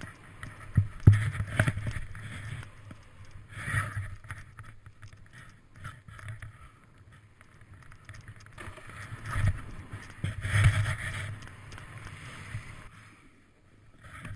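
Snowboard riding down through powder snow, heard through a body-mounted action camera: uneven surges of hissing snow spray and board rumble on the turns, with wind on the microphone, dying down near the end.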